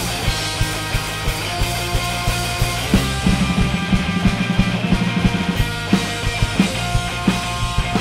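Live rock band playing: electric bass, a drum kit and electric guitar through a Marshall amp. The drums keep a steady beat, with a quick run of rapid strokes from about three seconds in until just past five seconds.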